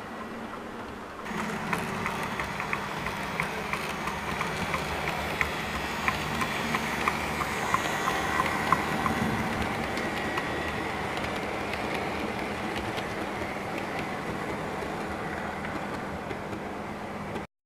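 Model trains running past on a layout: a steady rumble of wheels on the rails with sharp clicks as they cross the rail joints, getting louder about a second in. The sound cuts off suddenly near the end.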